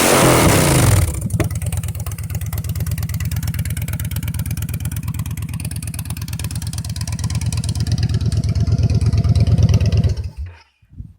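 2012 Victory High Ball's Freedom 106 V-twin, running through Zoomies drag pipes. It is revved for about a second, then settles into a pulsing idle that grows slightly louder before the engine cuts off near the end.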